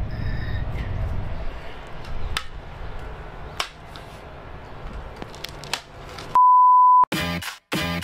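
A low background rumble with a few faint clicks, then a loud, steady, single-pitched censor bleep lasting under a second. Right after it, intro music starts in choppy, stop-start beats.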